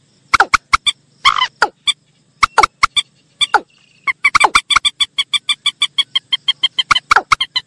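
Recorded waterhen calls played as a bird lure: sharp clucking calls, scattered at first, then from about four seconds in a fast even run of about six calls a second, with a faint steady hum beneath.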